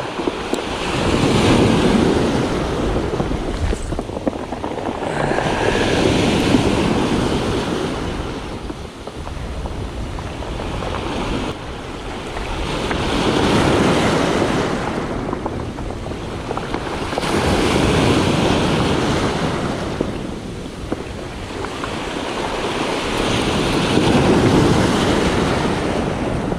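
Waves breaking and washing up a beach of large rounded pebbles, the surf rising and falling in swells about every five seconds.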